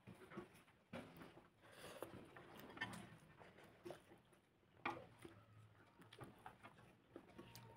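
Faint eating sounds: fingers mixing rice on a plate, then chewing with small, irregular mouth clicks.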